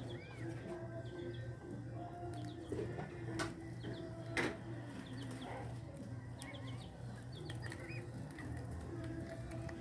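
Birds chirping in short high notes over a steady low hum, with two sharp clicks about three and a half and four and a half seconds in.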